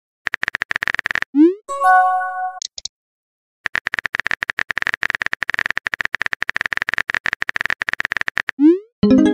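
Chat-app typing sound effect: rapid, even clicking with a steady tone through it, in two runs, a short one at the start and a long one from about three and a half seconds in. After each run comes the rising pop of a message being sent, and after the first one a brief chime.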